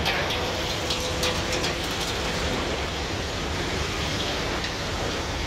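Steady low rumble and noise of a working scrapyard, with a few light clicks in the first two seconds and a faint hum that fades out about halfway through.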